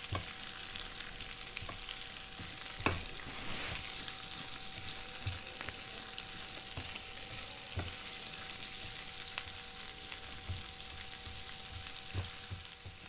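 Sliced onions sizzling in hot oil in a nonstick frying pan while being fried until pink, stirred with a spatula that gives a few light knocks and scrapes against the pan. A faint steady hum runs underneath.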